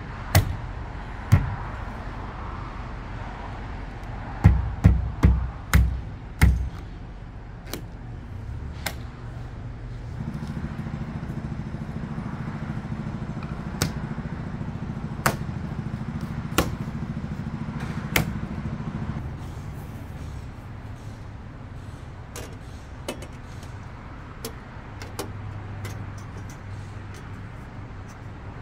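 Car window trim molding being tapped down onto the rear window frame with a small tapping tool: sharp taps and clicks, a quick run of five about four to six seconds in, then single ones a second or more apart. A low steady hum runs underneath from about ten to nineteen seconds in.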